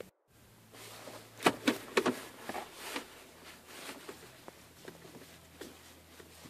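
Irregular plastic clicks and taps from the centre-console trim around a Mazda 6's gear shifter being worked loose by hand. The louder knocks come about one and a half to three seconds in, with fainter ticks after.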